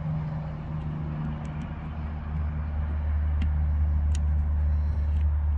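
A steady low hum like a running vehicle engine, with a few light, sharp clicks from the Lishi pick working the Audi's door lock.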